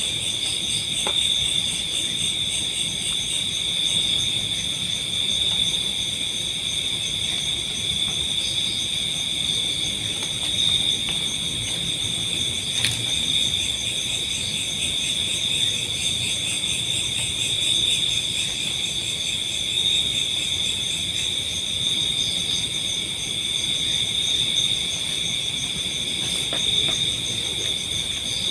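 Night insects, crickets among them, chirring in a dense, steady chorus of fast pulsing trills at several high pitches.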